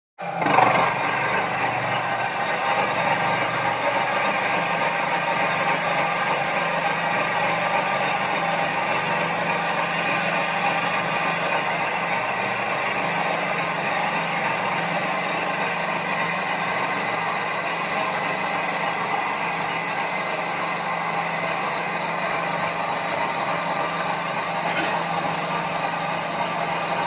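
A machine running steadily, a dense mechanical whir with several steady tones that stays even throughout.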